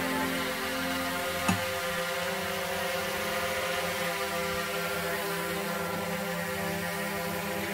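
DJI Mavic Air 2 quadcopter hovering, its four motors and propellers giving a steady buzzing whine of several tones. A short click comes about a second and a half in.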